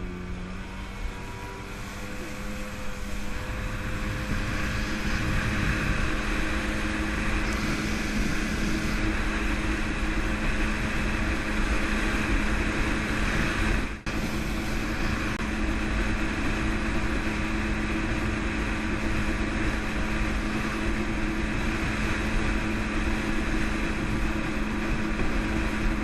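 Jet ski engine running under way at a steady pitch over a rush of wind and water, growing louder over the first few seconds and then holding even. It drops out for a moment about halfway through.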